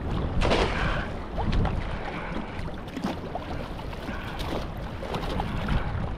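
Water sloshing and splashing against a kayak's hull in choppy water, with wind buffeting the microphone as a low rumble.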